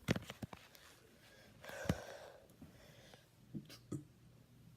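A person's quiet breathing and mouth noises: a few sharp clicks at the start, a breathy exhale about two seconds in, and two short sounds near the end.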